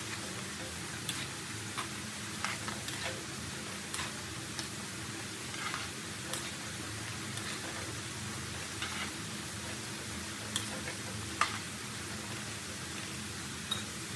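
Potato sticks deep-frying in oil in a metal wok, a steady sizzle throughout. Scattered sharp clicks and taps of metal tongs against the wok as the fries are turned, the loudest about eleven seconds in.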